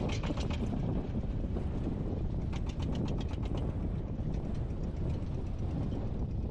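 Motor tricycle engine running, a steady low rumble with stretches of fast, even ticking.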